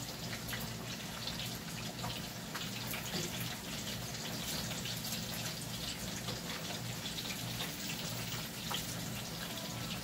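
Breaded chicken rolls deep-frying in plenty of hot oil over a low flame: a steady sizzle with many small pops and crackles.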